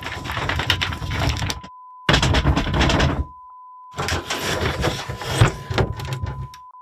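Ill-fitting wooden sliding door (hikido) of an old Japanese house being slid in three strokes, about two seconds, one second and two and a half seconds long: wood scraping and creaking against wood, heavy and catching, with sharp knocks. A steady beep tone runs underneath.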